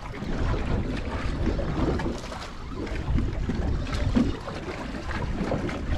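Wind buffeting the microphone, a rough irregular rumble, with water sloshing around a drifting boat.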